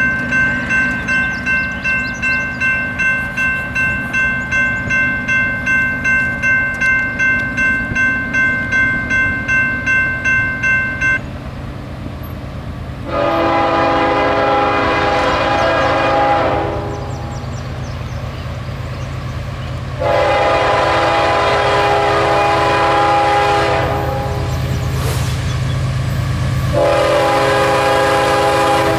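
A grade-crossing bell rings in quick repeated strokes, about two and a half a second, then stops about 11 seconds in. The approaching CSX diesel freight locomotive then sounds its air horn in three long blasts of several seconds each, the last still going at the end, over the low rumble of the locomotives' engines as the train draws closer.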